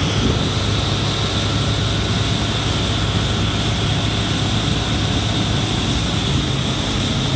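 Motorboat engine running steadily at speed, with wind and rushing water around the hull.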